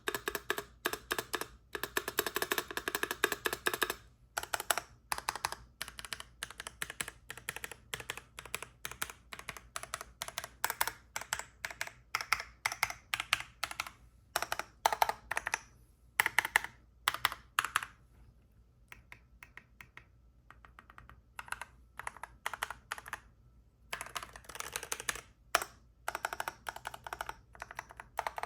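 Typing on an Asus ROG Strix Scope II 96 Wireless mechanical keyboard: fast runs of key clacks, thinning out to scattered keystrokes for a few seconds about two-thirds of the way through, then picking up again.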